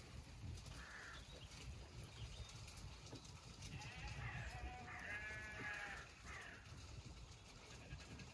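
Zwartbles sheep bleating faintly: a short call about a second in, then one longer, quavering bleat in the middle.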